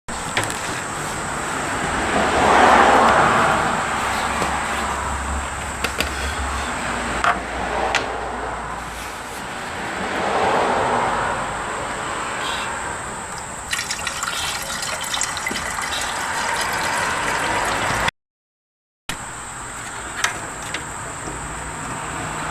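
Coolant being poured into the intercooler cooling system of a supercharged Ford F-150 Lightning: a steady rush of liquid that swells louder twice, with a few small clicks and knocks.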